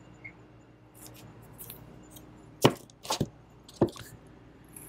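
Vinyl records and a boxed set being handled and set down in a display bin: light rustling of sleeves, then three sharp knocks in the second half.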